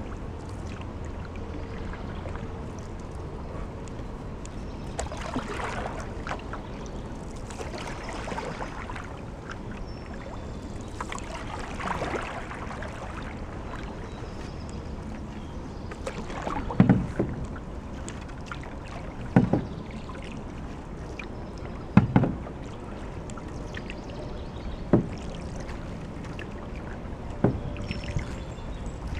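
Canoe paddle strokes: soft water swishes in the first half, then a sharp knock of the paddle against the canoe about every two and a half seconds.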